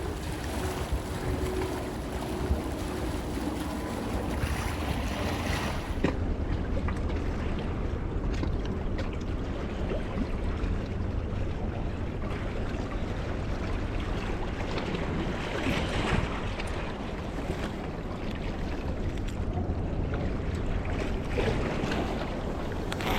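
Wind on the microphone and sea water washing against an artificial rocky shore, a steady rumbling noise, with a change in tone about six seconds in.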